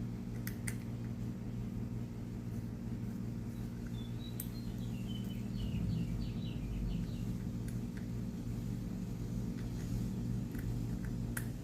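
A bird chirping a quick run of short, falling notes about four seconds in, over a steady low hum, with a few sharp light clicks.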